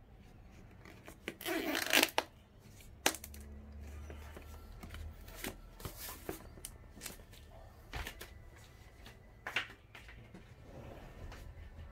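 Packing materials being handled: a short loud rustle about a second and a half in, then scattered sharp clicks and knocks.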